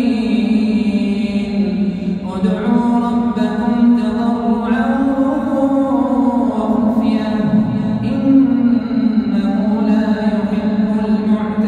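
A man's voice reciting the Quran in slow melodic chant (tajwid), holding long drawn-out notes that glide gently in pitch, with only a few short breaks between phrases.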